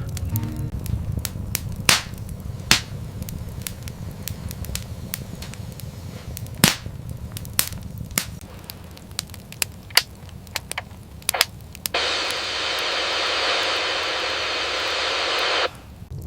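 Fire crackling with sharp, irregular pops over a low rumble. About twelve seconds in, a steady hiss starts and cuts off suddenly after about four seconds.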